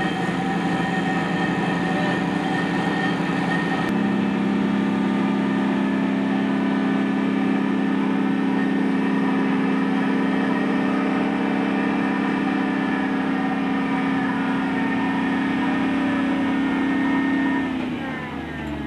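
Railway breakdown crane's diesel engine running steadily. It changes note about four seconds in and falls away near the end.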